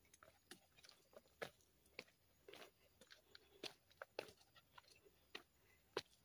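Faint footsteps crunching on a dirt hiking trail: short, irregular crunchy steps, a few a second.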